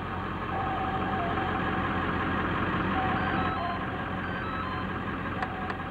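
A vehicle engine running steadily, with a string of short electronic beeps at changing pitch over it.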